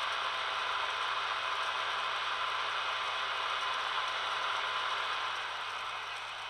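Sound decoder of a Brawa H0 V100 (BR 213) model diesel locomotive playing its cooling-fan sound through the model's small loudspeaker: a steady mechanical whirring hiss that drops a little about five seconds in.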